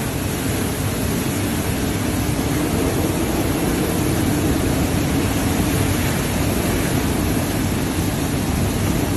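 Hurricane wind and heavy wind-driven rain lashing a street: a steady, loud rushing noise.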